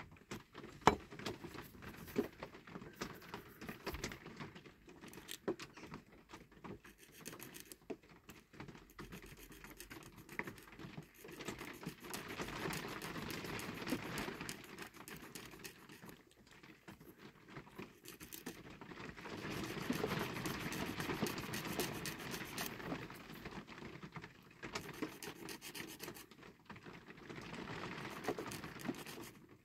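Small hand file scraping the edge of a tiny reproduction part held between the fingers, taking a little off so it fits. The rasping comes in stretches of quick strokes, louder from about twelve to fifteen seconds in and again around twenty seconds.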